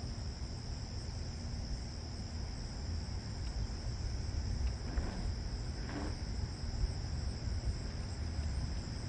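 Steady high-pitched chorus of crickets, with a low rumble of wind on the microphone. Two faint, brief falling sounds come about five and six seconds in.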